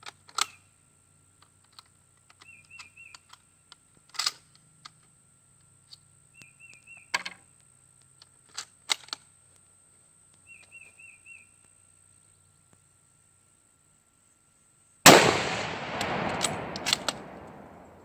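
A single rifle shot about fifteen seconds in, with a long echo that fades over the next few seconds. Before it there are only a few faint clicks and a short warbling chirp heard three times.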